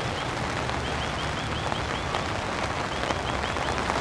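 Heavy rain falling steadily, an even hiss. Over it, a short high chirp repeats quickly in three runs.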